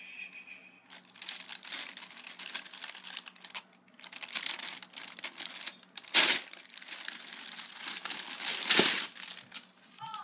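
Tissue paper crinkling and rustling in a shoebox as a hand pulls it back, in irregular bursts, with two louder rustles about six and nine seconds in.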